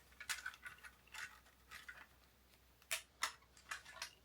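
Small mechanical clicks and short rasps from a Lubitel 166U medium-format camera being worked by hand, with several sharp clicks in the second half.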